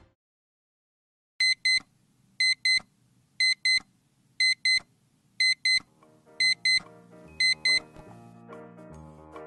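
Alarm clock beeping in pairs of short, high beeps, about one pair a second, seven pairs in all. Soft music comes in under the last few beeps.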